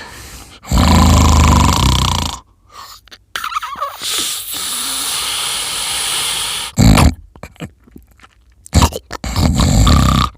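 Loud, rough snoring. A long rasping snore, then a drawn-out hissing breath, short snorts, and another long snore near the end.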